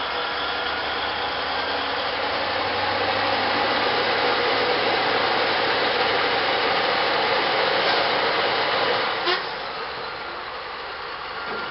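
Large diesel mining haul truck engine working under heavy load against a taut tow strap: a steady loud engine noise that builds about three seconds in. About nine seconds in there is a sharp knock, and the engine noise drops back.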